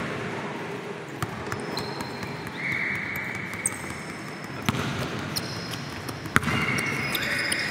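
Basketball game on an indoor court: a basketball bouncing on the floor now and then, in a few scattered knocks, with short high squeaks of sneakers on the court over the steady noise of the hall.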